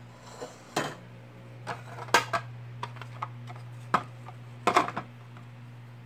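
Sharp plastic clacks and knocks as the clear lid of a Black & Decker food processor is handled and fitted onto its bowl, several separate clicks with a quick cluster near the end, over a steady low hum.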